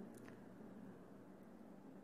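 Near silence: faint steady room hum, with two faint clicks near the start.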